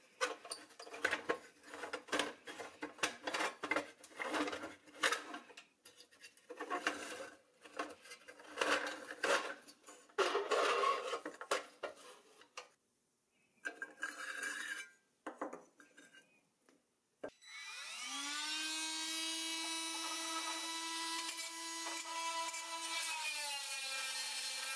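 Rapid, irregular scraping of a wire brush scrubbing rusty pressed-steel toy bodywork. About 17 seconds in, a Milwaukee cordless rotary tool spins up with a rising whine and runs at a steady pitch, which drops slightly near the end as the tool is loaded against the metal.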